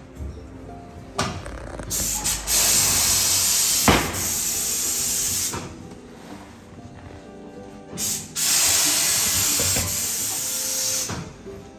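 Compressed air hissing from a workshop air line in two long bursts of about three seconds each, with a sharp knock between them, during tyre fitting.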